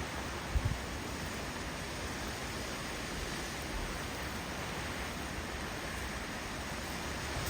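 Steady rushing noise of heavy thunderstorm rain and wind. There are a couple of brief low thumps about half a second in.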